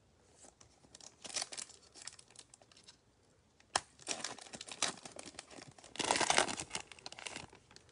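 Foil wrapper of a Select football card pack crinkling and tearing as gloved hands rip it open, in uneven bursts of rustling with a single sharp snap near the middle and the loudest tearing about six seconds in.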